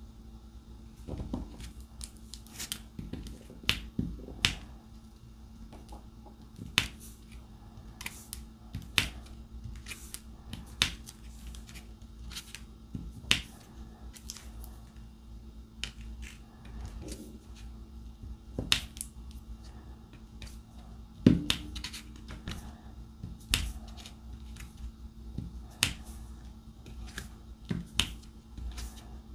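Diamond painting drill pen tapping: sharp, irregular clicks as resin drills are picked up from the plastic tray and pressed onto the sticky canvas, with a faint steady hum behind.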